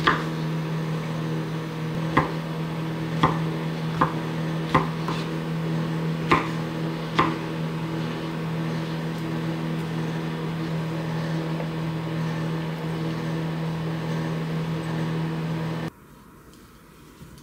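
Microwave oven running with a steady hum while a kitchen knife chops mushrooms on a wooden cutting board: about seven sharp knocks in the first seven seconds, then fainter cutting. The hum cuts off suddenly near the end.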